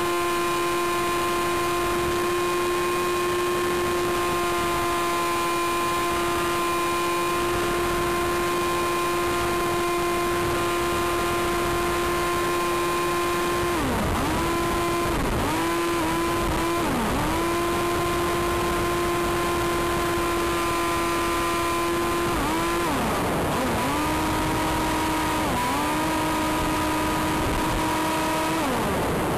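Electric motor and propeller of an Aerobird Challenger RC plane, heard from an onboard camera: a steady high whine with wind rush. About halfway through, the whine starts dipping sharply in pitch and recovering, several times in quick succession, as the motor briefly loses and regains speed.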